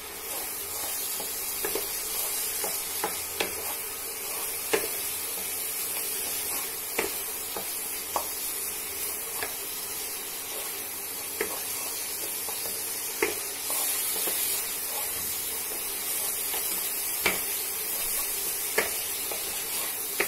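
Spice masala sizzling in oil in a nonstick kadai, stirred with a wooden spatula that knocks against the pan about once every second or so over a steady hiss. The masala is being fried down (koshano) with a little added water as the base for mutton kosha.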